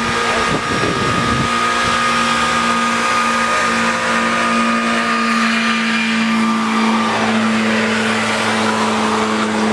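Honda Civic Si four-cylinder engine held at high, steady revs while the tires spin and squeal in a burnout.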